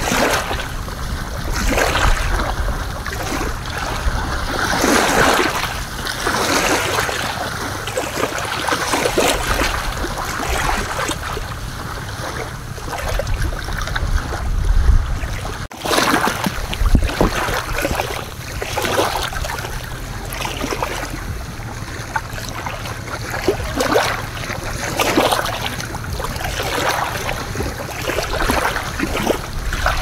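Small waves lapping and washing onto a sandy beach in surges every second or two, with wind buffeting the microphone in a steady low rumble. There is a brief sudden dropout about halfway.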